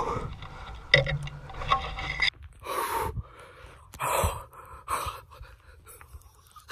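A man gasping and breathing hard in separate heavy breaths about once a second, wordless with excitement and shaking after a long bow draw. There is a sharp crack at the very start.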